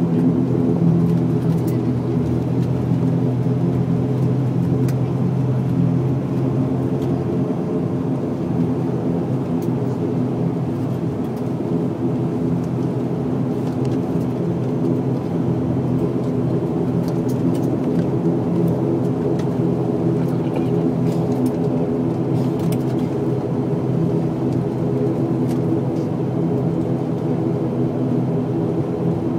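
ATR 72-500's twin turboprop engines and propellers running while the airliner taxis, heard inside the passenger cabin as a steady multi-tone drone.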